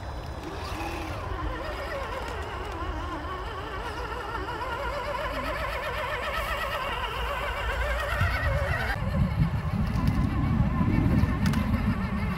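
Electric motor and gear whine of an Axial SCX10 II 1/10 scale RC crawler driving over ice, wavering up and down in pitch as the throttle changes. About nine seconds in, the whine drops away and a louder low rumble takes over.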